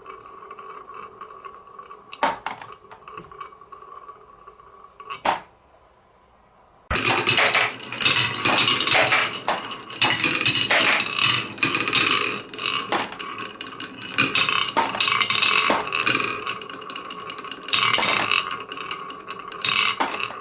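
Marbles clacking down a marble run set on cans. There are a couple of single sharp clacks in the first few seconds and a short pause, then from about seven seconds in a dense, rapid clatter of many marbles rolling and knocking against one another.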